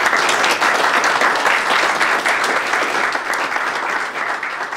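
Audience applauding: a dense patter of many hands clapping, tapering off gradually in the second half.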